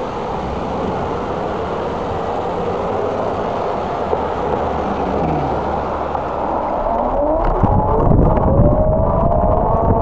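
Car and tyre noise as a car passes close by on the street. From about two thirds of the way in, wind buffets the microphone and a whine rises steadily in pitch.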